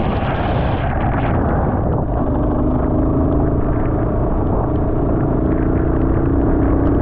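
Motorcycle engine running at speed, with heavy wind rumble on the microphone; a steady engine tone comes through more clearly from about two seconds in.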